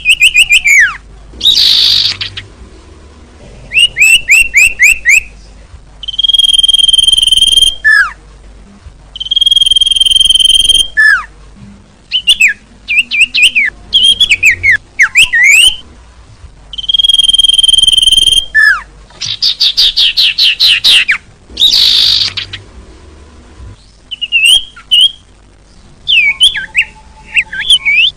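Small songbird calls played as a bird-lure recording. Bursts of one to two seconds alternate long, steady high whistles with rapid runs of short falling chirps and an occasional brief buzzy call, separated by short pauses.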